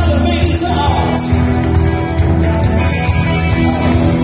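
Live rock band playing loudly, with electric guitar, drums and a male lead vocal.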